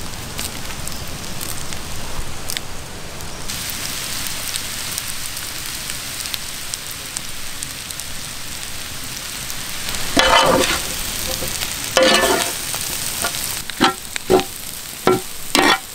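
Squid frying in oil and masala with curry leaves, a steady sizzle that grows brighter about three and a half seconds in. Near the end a ladle stirs through the pan, with a few sharp knocks.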